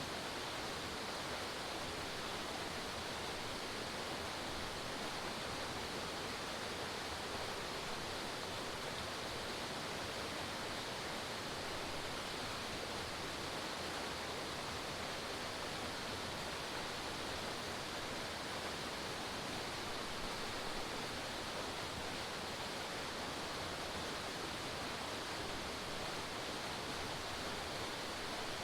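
Forest waterfall: water falling and splashing in a steady, unbroken rush.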